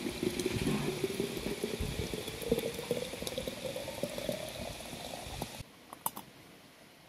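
Water poured from a kettle into a three-litre glass jar of blackberries, its pouring note rising steadily in pitch as the jar fills. It cuts off suddenly about five and a half seconds in, followed by a few light clicks of metal jar lids.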